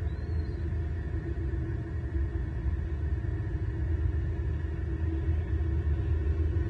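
Steady low rumble from the nest camera's outdoor microphone, with one faint, short high chirp just after the start.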